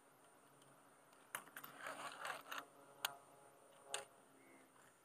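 Faint clicks and ticks from a baitcasting reel being handled on the rod, a few irregular clicks starting about a second and a half in.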